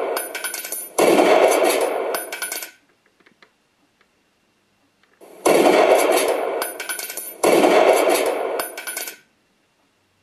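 Beier USM2 sound module in an RC truck playing truck sound effects: four harsh bursts in two pairs, each starting suddenly and dying away within about two seconds, with a pause of a couple of seconds between the pairs.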